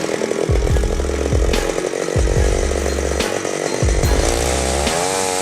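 Chainsaw running and cutting wood, its pitch rising and falling in the last second or so as the engine is revved and eased.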